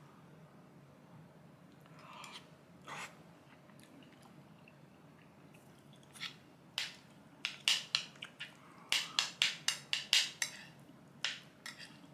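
Close-up chewing and lip-smacking of a mouthful of curry and rice: quiet at first, then from about halfway a run of short wet smacks, about three a second, stopping shortly before the end.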